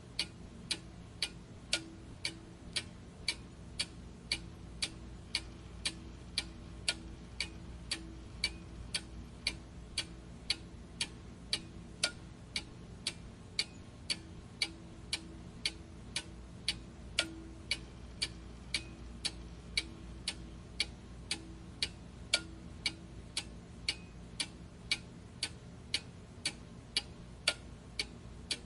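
Clock ticking steadily, with sharp, even ticks about two a second over a faint low hum.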